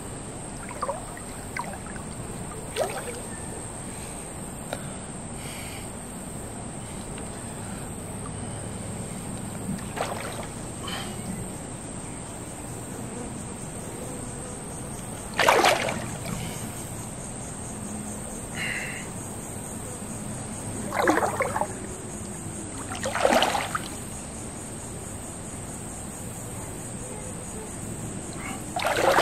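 Shallow creek water sloshing and splashing around a person's legs as he shifts his stance, with three louder splashes in the second half. A steady high-pitched whine runs underneath.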